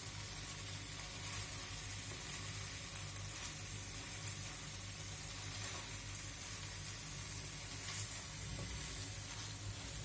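Steamed red pumpkin sabzi sizzling gently in the uncovered pan on the gas, with a few faint clicks of a spoon against the pan.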